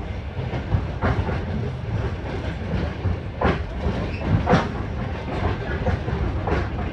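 Passenger train running, heard from inside the carriage: a steady low rumble of wheels on rail with several sharp clacks as the wheels cross rail joints, the loudest two near the middle.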